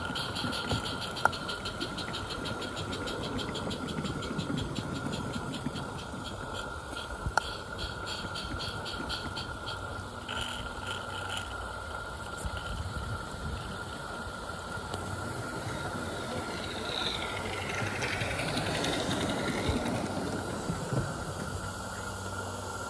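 Small live steam garden-railway locomotive running slowly, with a fast, even exhaust beat over a steady hiss and a couple of sharp clicks from the running gear and track. Toward the end the sound shifts and thickens, with pitches sliding up and down for a few seconds.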